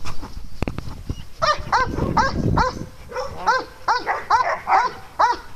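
A dog barking repeatedly at a steady pace, about three short, fairly high barks a second, starting about a second and a half in.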